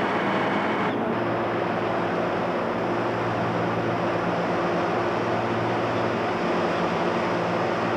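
A steady motor hum under a loud, even rushing noise, with a shift in the noise about a second in.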